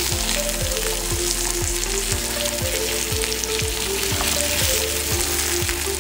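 Smoked tuna fillets sizzling in hot oil on a griddle as they are turned over with tongs. Background music with a steady beat, about two kicks a second, plays under the sizzle.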